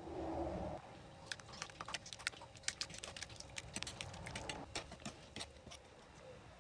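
A fork beating an egg into ricotta and flour on a worktop, its metal tines making quick, irregular clicks and taps against the surface for several seconds. The clicks start a little over a second in, after a brief soft sound as the egg slides out of a glass bowl, and stop near the end.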